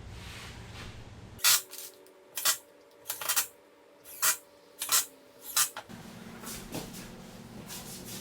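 A series of about seven sharp metallic clinks or knocks, irregularly spaced, each with a short ring after it.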